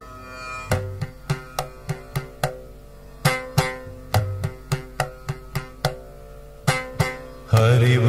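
Indian devotional music intro: a steady drone under a run of sharp plucked-string and drum strokes. Near the end a male voice starts singing.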